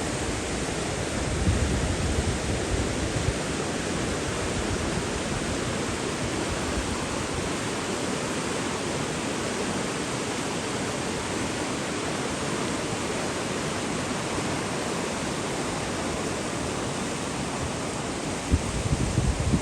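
Running water rushing steadily, like a stream or small waterfall, an even hiss with no breaks. A few brief low bumps come about two seconds in and again near the end.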